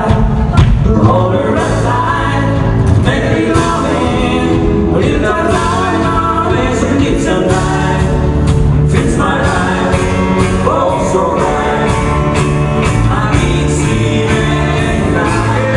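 Live country band playing, with a singer over drums keeping a steady beat and guitars.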